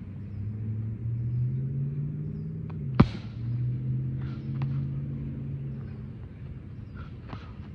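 A single sharp smack of a glove striking a Thai pad about three seconds in, with a few faint lighter taps around it. Under it runs the low drone of a vehicle engine, rising in pitch, dipping, then carrying on steadily before fading.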